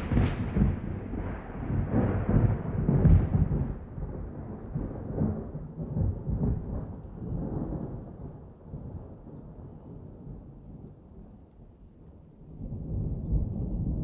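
Thunder rolling over steady rain: a loud rumble with sharp cracks near the start and again about three seconds in, fading slowly over several seconds. A second roll of thunder swells up near the end.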